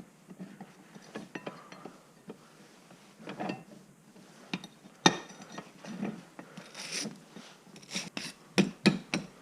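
Scraping and clicking of metal on metal as corrosion is worked off a rusty pipe wrench, in short irregular strokes, with a sharp knock about five seconds in and several sharp knocks near the end.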